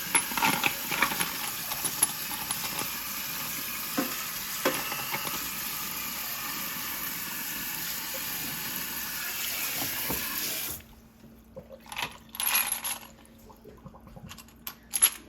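Tap water running into a sink while a handful of steel engine bolts, fresh out of degreaser, are rinsed and clink against each other. The water shuts off abruptly about two-thirds of the way through, followed by a few separate metal clinks as the bolts are handled.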